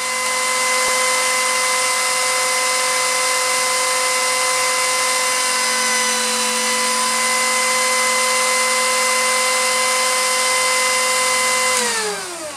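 Lathe running with a homemade eccentric chuck spinning a black walnut workpiece off-center: a steady motor whine over a hiss. Near the end the whine falls in pitch and fades as the lathe is switched off and spins down.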